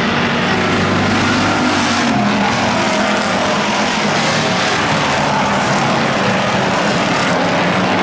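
A pack of Pure Stock class stock cars racing on a paved oval, their engines running together in one loud, steady engine noise whose pitch wanders as they pass.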